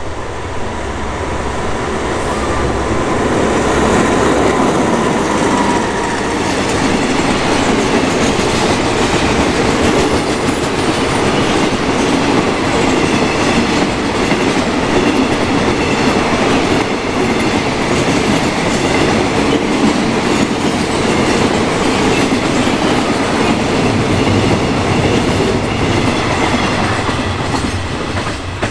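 Freight train of crude-oil tank wagons rolling past at speed: a steady loud rumble with the clickety-clack of wheels over the rail joints, led in the first few seconds by the Caterpillar-engined Alsthom diesel locomotive and easing slightly near the end as the brake van passes.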